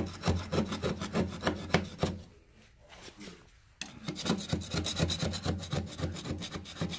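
A one-inch metal mud knife scraping WD-40-softened tar paper off a hardwood floor in quick, short, rasping strokes. The scraping stops for about a second and a half around two seconds in, then starts again.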